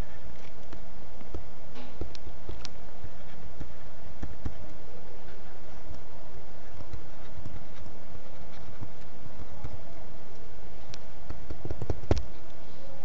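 Pen stylus tapping and scraping on a graphics tablet during handwriting, heard as scattered light clicks and knocks over steady background noise, with a short run of louder knocks near the end.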